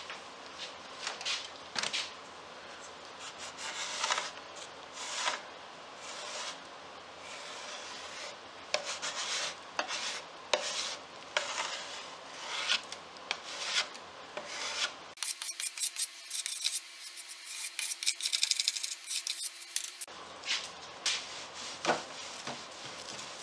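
A scraper drawn again and again across an oak board, wet scraping strokes at an uneven pace as it lifts softened paste stripper and the old polyurethane top coat off the wood. From about fifteen to twenty seconds a stretch of quicker, higher-pitched rasping breaks in.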